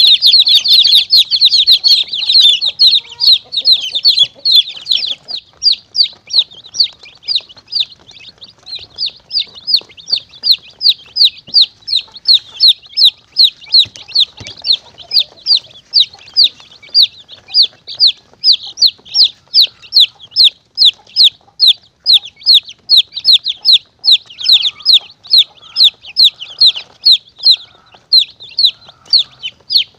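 Baby chicks peeping: a continuous run of high, short, falling peeps, crowded together for the first few seconds, then about two or three a second. It is a caller recording played to lure monitor lizards and mongooses.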